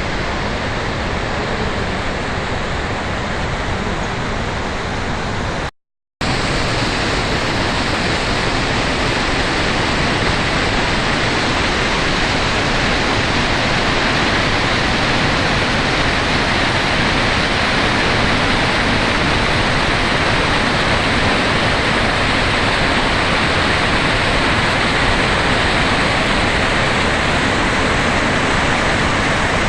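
The Rhine Falls pouring: a loud, steady rush of falling water. It cuts out to silence for a moment about six seconds in, then comes back a little louder and brighter.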